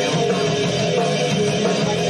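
Rock music: a band track with electric guitar, bass and drums playing continuously.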